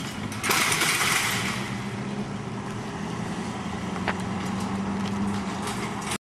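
Pickup truck engine idling close by, a steady low hum, with a short rush of noise about half a second in. The sound cuts off abruptly just before the end.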